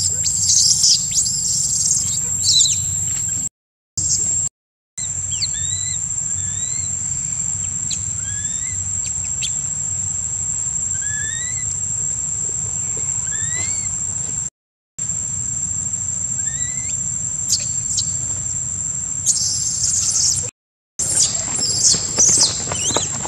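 Steady high-pitched insect drone over a low hum, with short rising bird chirps repeating every second or two. Louder shrill high calls come near the start and again near the end, and the sound cuts out briefly four times.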